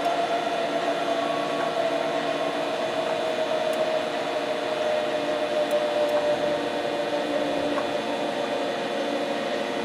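Cincinnati Milacron 220-8 centerless grinder running, a steady mechanical hum with a whine over it. The whine sinks slightly in pitch over the first few seconds as the speed is turned back down, then holds steady.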